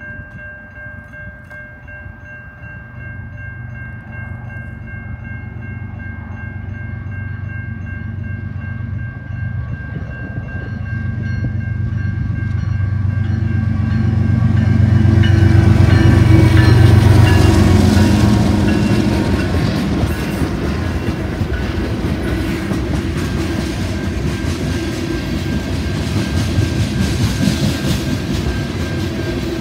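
Grade-crossing bell ringing steadily as a CN freight train led by a GE ES44AC diesel locomotive approaches. The locomotive's engine grows louder to a peak about 16 seconds in, then the train's tank cars roll past with steady wheel clatter.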